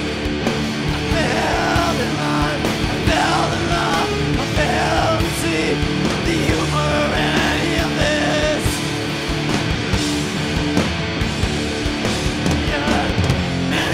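Rock band playing loud live, with heavily distorted electric guitars, bass and drums.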